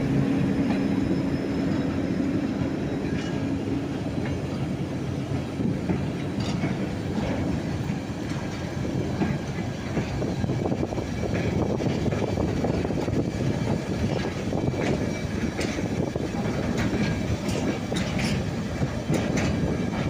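Freight train of tank wagons and flat wagons rolling past at trackside: a steady rumble of wheels on rail with scattered clicks and knocks as the wheels cross rail joints. A diesel engine's drone fades out about eight seconds in.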